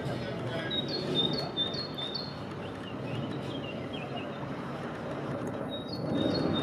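A small songbird calling: a quick run of short, high notes, each falling slightly in pitch, about three a second, with another run near the end. Under it is a steady low rumble.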